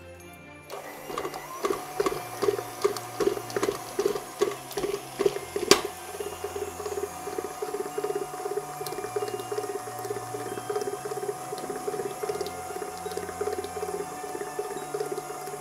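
KitchenAid stand mixer running, beating icing in its stainless steel bowl, with a steady motor whine. It starts about a second in and pulses about twice a second at first, then settles into an even run after a sharp click near the sixth second.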